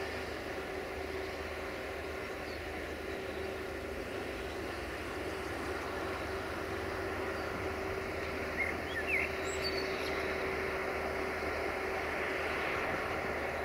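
CFR class 82 diesel-hydraulic locomotive approaching slowly with its passenger train, its engine a steady hum that grows a little louder as it nears. A few short bird chirps about nine seconds in.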